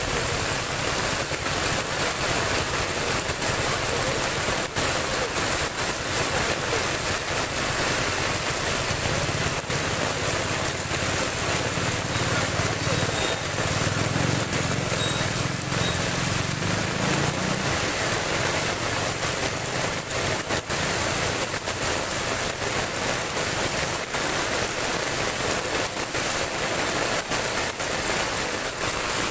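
Heavy typhoon rain pouring down in a steady, dense hiss. From about nine to eighteen seconds in, the low hum of a passing vehicle's engine rises and fades under the rain.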